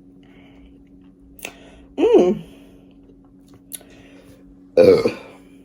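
A woman burps loudly near the end, brought up by the carbonated lemon-lime soda she is drinking. About two seconds earlier she makes a short 'ooh'-like sound.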